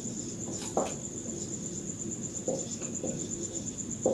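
An insect's steady high-pitched trill in fast, even pulses, with a few short, soft taps.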